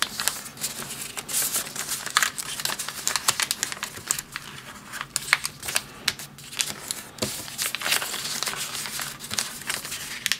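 A sheet of origami paper being folded and creased by hand, rustling, with many sharp little crackles as the folds are pressed flat.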